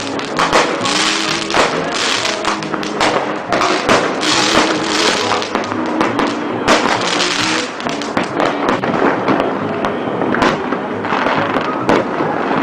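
New Year fireworks going off in quick succession: many sharp bangs and bursts of crackling, with music playing underneath.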